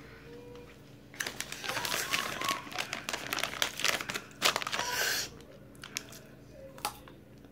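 Takis chip bag crinkling as it is handled and reached into, a dense crackle starting about a second in and stopping after about five seconds, with a few faint clicks around it.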